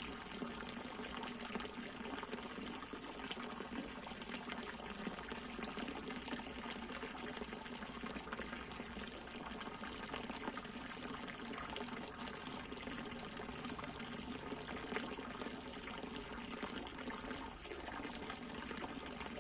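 Water in a fish pond pouring and splashing steadily, an even flowing sound with small irregular splashes.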